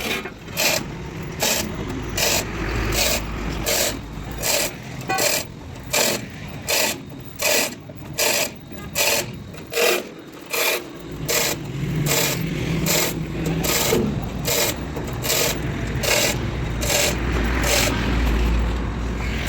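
Steady back-and-forth rasping strokes of a hand tool working metal, about three strokes every two seconds. The strokes run together into a more continuous rasp over a low hum in the second half.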